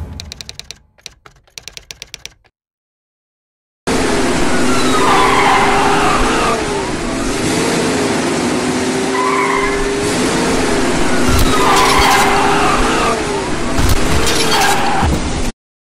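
Car-chase sound effect: a car engine running hard, its pitch rising and falling, with tyres squealing several times through the turns. At the start there is a short run of typewriter-like clicking, then a brief gap before the car sound cuts in.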